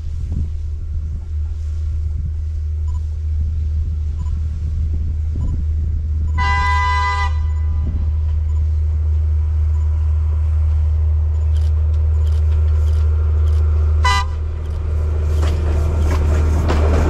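Diesel train horn sounding as the train approaches along the track: one blast lasting about a second, then a short toot about seven seconds later. The rumble and clatter of the oncoming train grow louder near the end.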